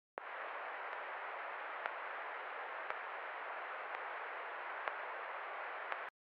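Steady hiss like static, with a faint click about once a second, cutting in sharply just after the start and off sharply near the end.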